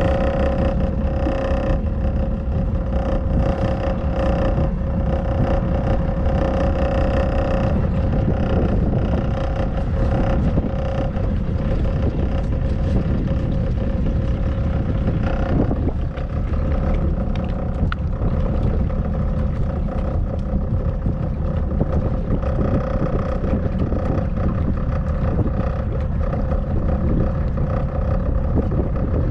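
Motorboat engine running steadily while the boat cruises, with a constant low rumble and a steady hum.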